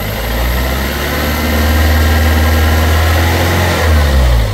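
2001 Toyota Corolla's 1.8-litre four-cylinder engine, which is logging a cylinder-1 misfire, revved up by hand and held at a raised, steady speed, then let back down toward idle near the end.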